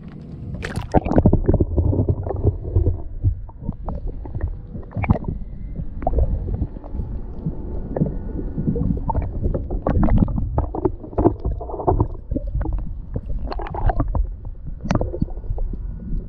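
Water heard through an action camera plunged underwater about a second in: a muffled low rumbling and gurgling, broken by many irregular clicks and knocks.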